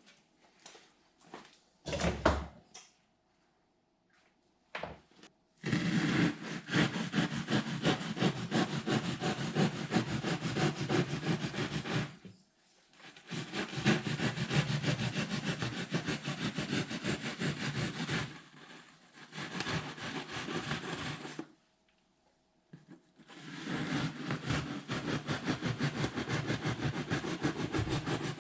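A few knocks, then a saw cutting an opening to connect a furnace heating duct. It cuts in four runs of several seconds each, with short pauses between them.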